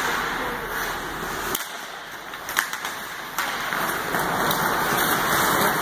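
Ice hockey rink sound during live play: a steady hiss of skates and rink noise, with a few sharp knocks of sticks and puck between about one and a half and three and a half seconds in.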